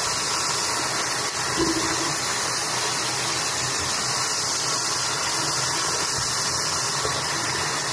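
Bathroom tap running steadily, warm water splashing into the sink and over hands being rinsed.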